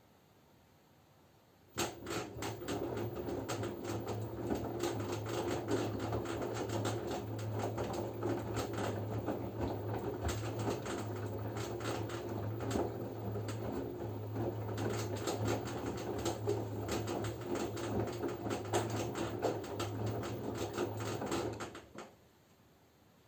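LG F10B9LD front-loading washing machine in its wash phase, turning its drum: a steady motor hum with the wet laundry tumbling and clattering inside. It starts about two seconds in and stops suddenly near the end, the usual turn-and-pause rhythm of a wash cycle.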